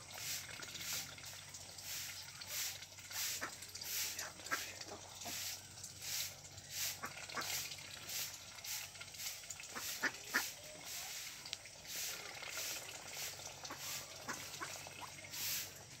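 A flock of domestic ducks milling about and preening, with scattered short clicks and soft calls. Under them runs a steady high-pitched pulsing of about two to three beats a second.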